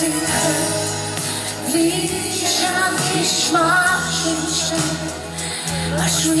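Live pop music: a band playing with sustained bass notes, and a man and a woman singing over it.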